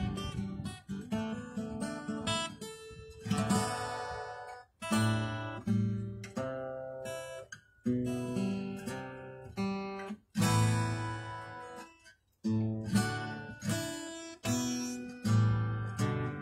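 Solo acoustic guitar played unaccompanied: chords are strummed and left to ring out and fade, with a few brief pauses between phrases.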